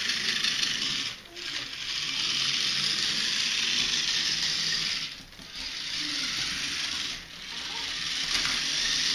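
Battery-powered toy monster truck's small motor and plastic gears whirring and grinding as it drives across a hardwood floor, cutting out briefly three times.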